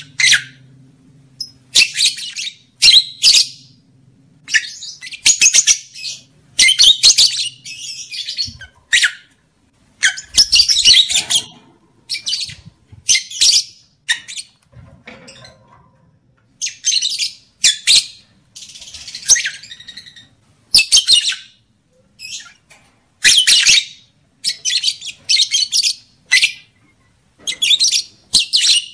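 Lovebirds calling: shrill, rasping chirps and squawks in short bursts of under a second, coming irregularly every second or two.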